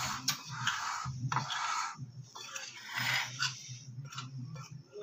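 Metal spoon stirring dry flour in a glass bowl: repeated scraping strokes, with a few sharp clinks of the spoon against the glass.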